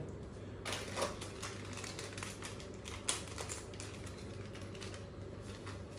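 Packaging crinkling and tearing as a spice-mix packet is opened by hand, with scattered light clicks and rustles, over a steady low hum.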